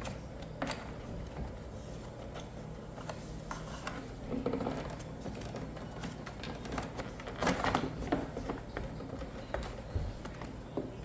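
Small clicks, taps and rattles of hand tools and plastic covers being handled while a Stihl BR600 backpack blower is taken apart, with a short clatter about two thirds of the way in. A faint steady hum lies underneath.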